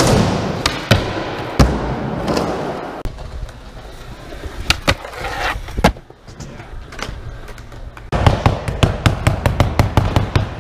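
Skateboard rolling over concrete and ramps: a low wheel rumble with sharp clacks of the board popping and landing. From about eight seconds in comes a fast, dense run of clicks and scrapes as the board grinds along a ledge.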